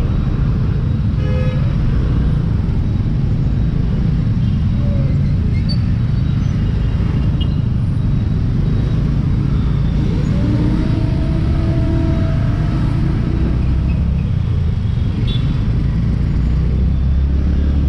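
Road and traffic noise heard from a moving scooter in heavy traffic: a steady low rumble that swells near the end as the scooter picks up speed. A short horn toot sounds about a second and a half in.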